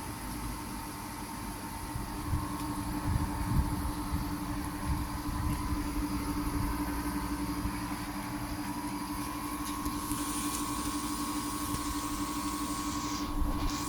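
Haier mini-split air conditioner running, a steady hum with one constant low tone.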